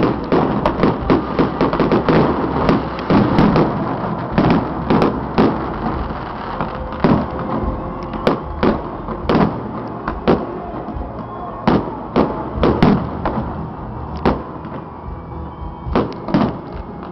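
Firecrackers and fireworks going off: a rapid, irregular string of sharp bangs and cracks over a continuous din, thinning out for a few seconds near the end.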